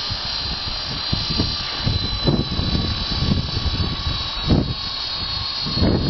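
Blade CP Pro electric collective-pitch RC helicopter hovering close by, its rotors and motor making a steady high whine. Gusts of strong wind buffet the microphone in irregular surges.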